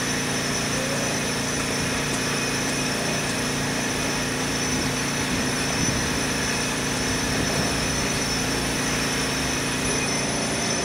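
Steady drone of construction machinery running, a constant hum with a few high whines held over a noisy hiss.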